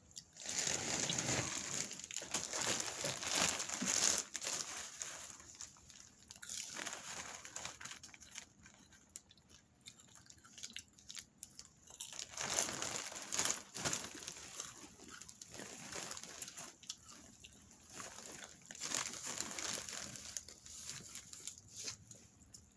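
A large clear plastic bag of popcorn crinkling and rustling as a hand rummages in it, in several loud spells, mixed with the crunch of popcorn being chewed.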